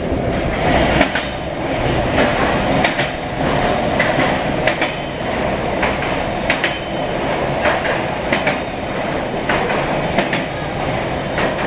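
Bogies of a Siemens Desiro diesel multiple unit rolling over jointed track, heard from inside the passenger car as it runs through a tunnel: a steady rumble broken by sharp, irregular clicks from the wheels crossing rail joints.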